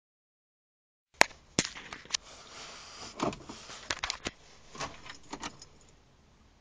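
Car keys jangling and clicking in the ignition switch, with knocks and rustling as the ignition is switched on before a cold start. A sharp click about a second in is the loudest; the rest is a string of smaller clicks and knocks, then quiet. The engine is not running.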